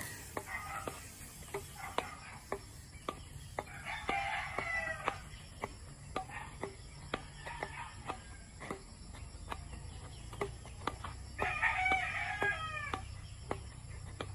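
A rooster crowing twice, once about four seconds in and again near the end, each crow lasting about a second and a half, with short sharp ticks scattered throughout over a low hum.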